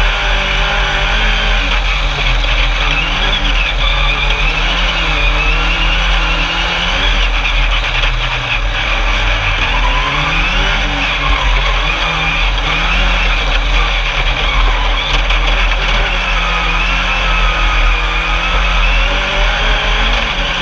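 Engine of an Alumicraft single-seat Class 10 off-road race buggy, heard on board. Its pitch rises and falls every second or two as the throttle is worked, over a heavy low rumble.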